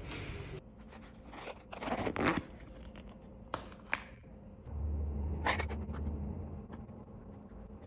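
Plastic takeout container and plastic fork being handled at close range: scraping and crinkling, with a couple of sharp clicks.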